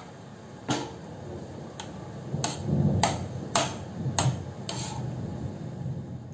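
Steel perforated spoon (jhara) knocking and scraping against a metal kadhai while stirring solid ghee to melt it. There are about seven sharp clinks, roughly one every half second to second, with a low scraping rumble between them.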